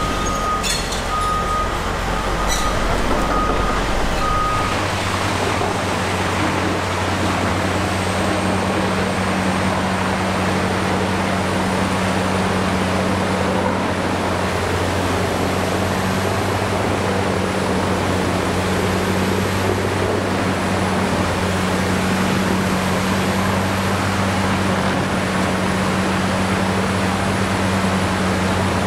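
Rotochopper B66 wood grinder and a CAT 320E excavator running, a steady loud machine noise with a low hum as scrap wood is fed in and ground. A broken beeping tone and a few knocks sound in the first few seconds, and a faint high whine comes in about a third of the way through.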